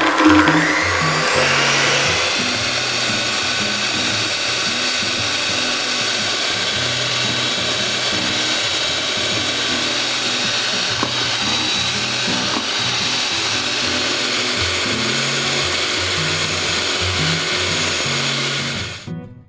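Electric hand mixer running at high speed, its twin beaters whipping eggs, sugar and emulsifier in a stainless steel bowl. The motor whines up to speed over the first couple of seconds, holds a steady whir, then cuts off just before the end.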